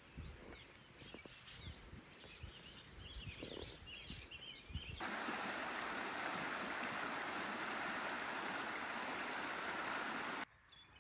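Outdoor ambience: faint bird chirps over low rumbling and thumps. About five seconds in, a steady rushing noise starts suddenly, becomes the loudest sound, and cuts off abruptly near the end.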